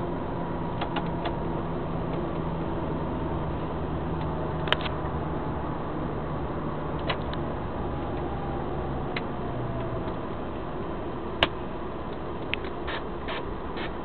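Truck engine running steadily, heard from inside the cab while driving. The engine note drops about nine seconds in. Short sharp clicks and rattles from the cab come and go, the loudest about eleven seconds in.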